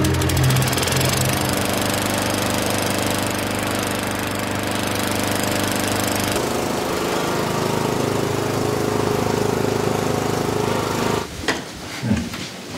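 A loud, steady mechanical drone with a fast rattle, like a small motor running. It changes about six seconds in and stops about eleven seconds in.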